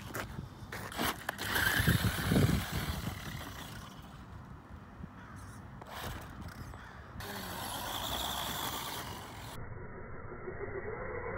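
Arrma Infraction RC truck driving on dirt, its electric motor and tyres heard in short cuts, loudest about two seconds in.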